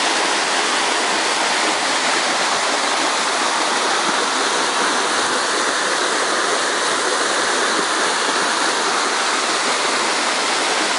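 Mountain stream cascading over rocks: a steady rush of water.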